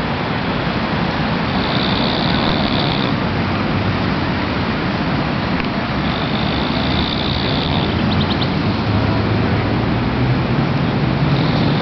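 A man snoring, one breath about every four to five seconds, under a loud steady rush of beach wind and surf noise.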